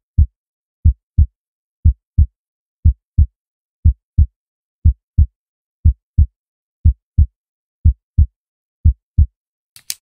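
Heartbeat sound effect: low, deep double thumps (lub-dub), about once a second for about ten beats. Just before the end come two short sharp clicks.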